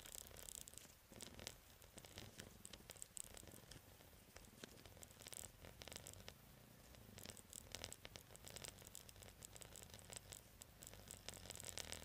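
Faint, muffled low rumble of an ATV engine running at low speed, under close scratching and rustling against the microphone.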